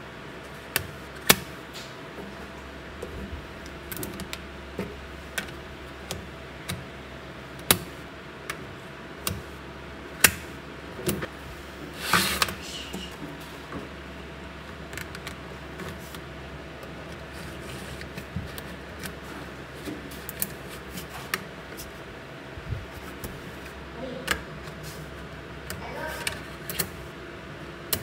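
Small neodymium magnetic balls clicking sharply against one another as slabs and rows of them are pressed into place, the clicks coming singly at irregular intervals. About twelve seconds in there is a longer, louder rattle.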